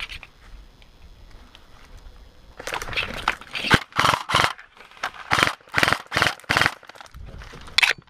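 Quick footsteps crunching through dry leaves and undergrowth, about two to three steps a second, starting about two and a half seconds in.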